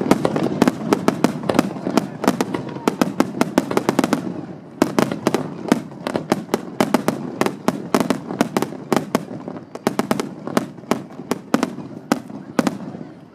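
Fireworks display: a dense run of sharp cracks and bangs, several a second, easing briefly about four seconds in before picking up again.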